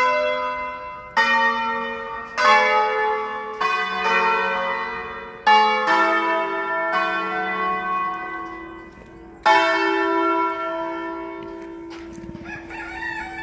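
Church bells in a bell tower rung in the Bergamasque way, bells of different pitches struck one after another at an uneven pace, each stroke ringing on and fading before the next.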